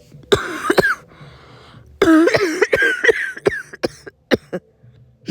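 A person coughing in a fit, acting out a congested chest-cold cough: a couple of harsh coughs, a longer voiced cough with throat clearing, then a quick run of short coughs.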